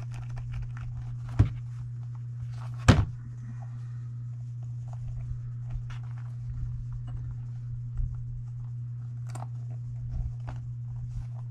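Small clicks and knocks as an RC crawler's 1.9-inch beadlock wheel and tire are handled and fitted together, with two sharper knocks about one and a half and three seconds in, over a steady low hum.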